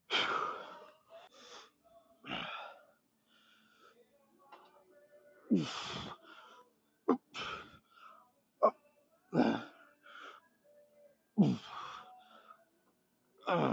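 A man's forceful grunts and hard exhales, one every second or two, several dropping in pitch: the strain of lifting through reps of heavy preacher curls.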